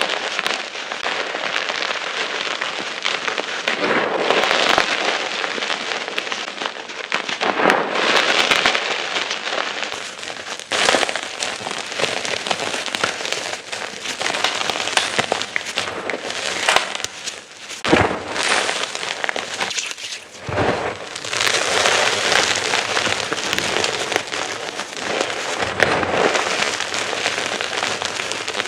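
Blocks and chunks of gym chalk being crushed and crumbled, a dense, continuous crunching crackle with a few sharper cracks in the second half.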